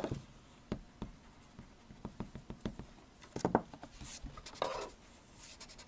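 Paper blending stump rubbing over pencil shading on drawing paper in short, irregular scratchy strokes, with a few light taps and hand rustles on the page.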